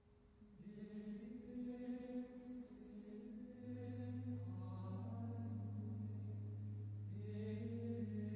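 Sung chant: a voice chanting in a pitched, melodic line in a church. A steady low held note comes in under the voice about three and a half seconds in and sustains.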